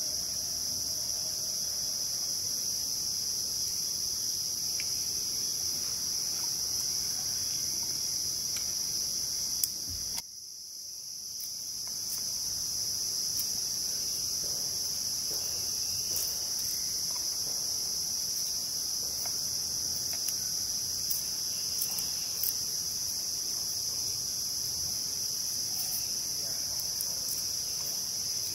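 Steady high-pitched insect chorus of a tropical rainforest, a shrill continuous trilling. The chorus drops out about ten seconds in and swells back over a couple of seconds. In the second half, light clicks and taps come from a small knife peeling and slicing garlic cloves on a wooden cutting board.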